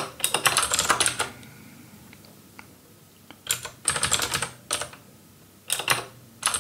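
Typing on a computer keyboard: three bursts of rapid key clicks, at the start, about three and a half seconds in, and near the end, with short pauses between.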